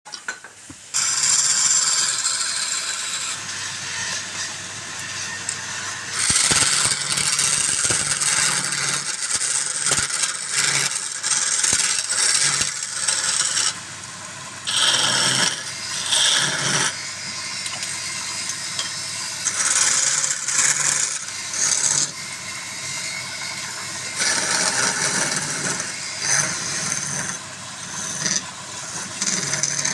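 Wood lathe running with a turning tool cutting the spinning wood: a steady motor hum under a hissing, scraping cut that comes and goes in spells of a few seconds.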